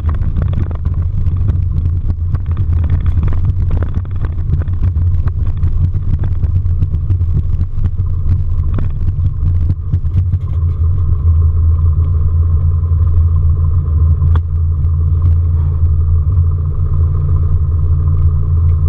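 Socata Rallye 235 tow plane's six-cylinder piston engine running at low power as the taildragger taxis on grass, heard from inside the cockpit as a loud, steady drone. Rattling and knocking from the airframe on the rough ground is busiest in the first half and thins out, and a steady higher hum joins about ten seconds in.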